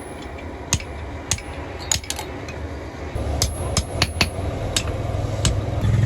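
A blacksmith's hammer striking metal, about ten sharp clanging blows at an irregular pace. A low rumble underneath grows louder about halfway through.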